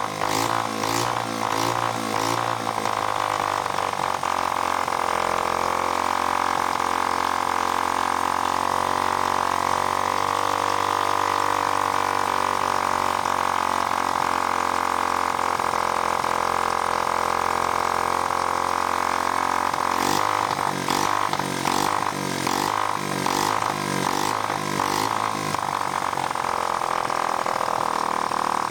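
1975 Honda C50's small four-stroke single-cylinder engine running on its own, with a lumpy, uneven beat near the start and again from about twenty seconds in, and a steadier note in between; the engine is out of tune and needs carburettor adjustment.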